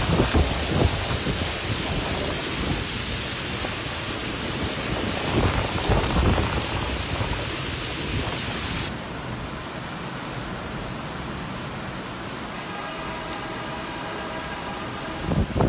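Heavy rain pouring down on a street in a loud, steady hiss, with low rumbles of thunder. About nine seconds in the sound cuts abruptly to a quieter, softer rain, with a faint pitched tone near the end.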